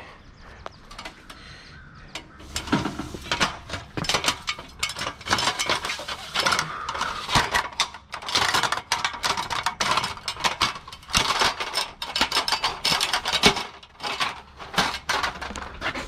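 Rapid, irregular metallic clinking and rattling of a worker climbing down an aluminium ladder, with boots and gear knocking on the rungs. It starts a couple of seconds in.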